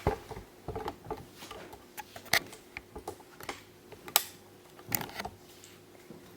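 Scattered light clicks and taps at uneven intervals, a few sharper ones standing out, like small household handling noises in a small room.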